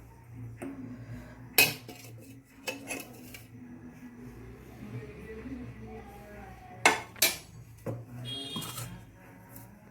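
Kitchen utensils clinking, knocking and scraping as ground spice is emptied from a mixer-grinder jar into a mixing bowl: a few sharp clinks, the loudest pair about seven seconds in, then a short rattling scrape with a ringing note near the end. A faint low hum runs underneath.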